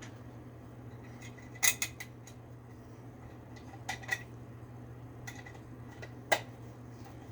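Sharp metallic clinks and taps of tools and parts handled against the metal of a window air conditioner under repair. They come as a quick cluster about a second and a half in, two more around four seconds and a single loudest clink near the end, over a steady low hum.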